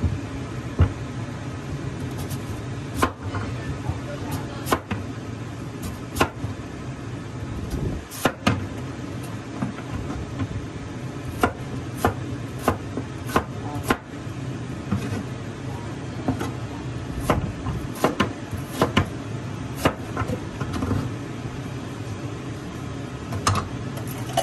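Cleaver slicing through radish onto a plastic cutting board: irregular sharp knocks, some in quick runs of several strokes, over a steady low hum.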